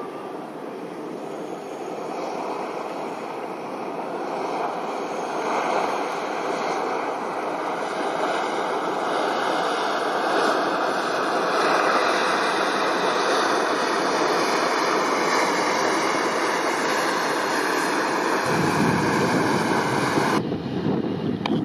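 Fast patrol boat passing close: the rush of its bow wave and engine noise grow louder over about ten seconds and then hold steady. Near the end, wind starts to buffet the microphone with a low rumble.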